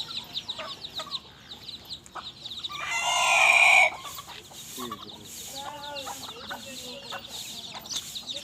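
Desi chickens calling: high peeping goes on throughout, a rooster crows loudly about three seconds in, and a hen clucks a few times after it.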